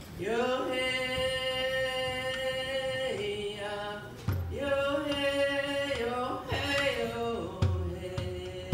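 A woman's solo voice singing a slow chant-like song in long held notes, each lasting a few seconds before stepping to a new pitch. A low thump comes about four seconds in and two more near the end.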